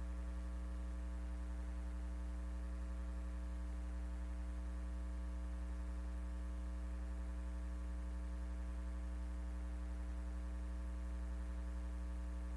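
Steady electrical mains hum with a buzzy edge, a low drone and its overtones holding unchanged throughout.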